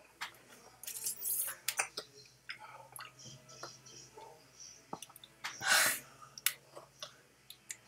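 Faint clicks and taps from a raw egg being handled, with one short breathy puff a little before six seconds in.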